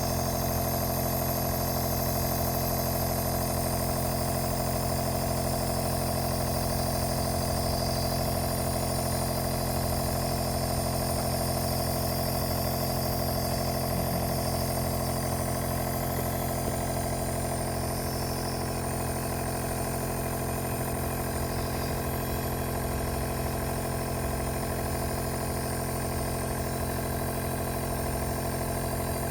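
Compressor nebulizer's small piston compressor running with a steady motor hum.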